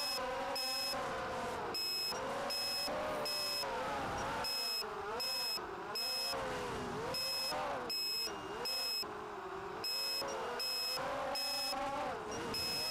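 Brushless motors of a ZMR 250 racing quadcopter (Emax 2204 2300kv motors with Gemfan 5045 props) whining, recorded onboard, the pitch swooping up and down with the throttle through turns. A high-pitched electronic tone cuts in and out over the whine about twice a second.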